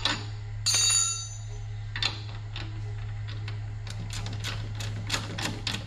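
Ratchet wrench tightening the nut on the mower deck's assist-spring eye bolt: a ringing metal clink about a second in, then a run of light clicks, roughly three or four a second, near the end.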